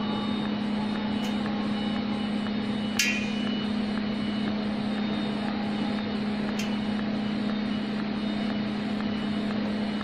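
Automatic TIG welding machine welding a tank's circular seam: a steady hum and hiss from the arc and machine, with a few sharp clicks, the loudest about three seconds in.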